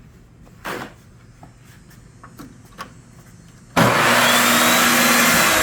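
A few light knocks, then an electric power tool switched on suddenly about two-thirds of the way in, its motor running loud and steady with a high whine.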